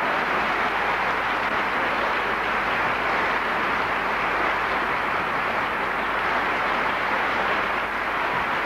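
Audience applauding steadily: dense, even clapping with no music or singing.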